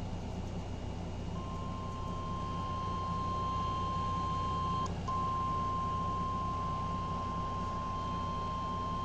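Emergency Alert System attention signal: the National Weather Service's single steady 1050 Hz warning alarm tone over FM radio, announcing a severe thunderstorm warning. It starts about a second and a half in and drops out for an instant about five seconds in, over a low steady hum.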